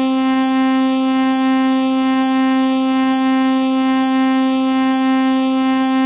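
Emergency alert alarm tone: a single steady, buzzing horn-like tone held at one pitch without wavering.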